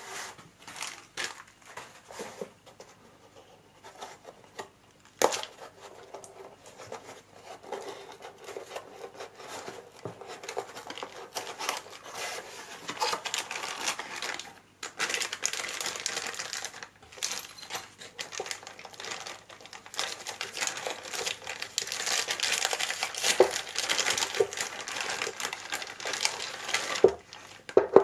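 Plastic packaging crinkling and rustling as the steel dome chuck jaws are unwrapped from their bag, getting louder and busier about halfway through. A few sharp knocks near the end as the metal jaws are set down on the wooden bench.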